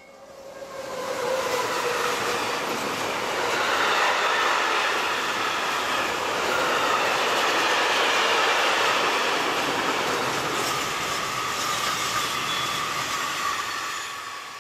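Freight train hauled by an SNCF BB 26000-series electric locomotive passing close by. The noise builds quickly over the first second or two, then a long steady rush of tank wagons and open wagons rolling over the rails, with a ringing wheel tone, and it fades near the end.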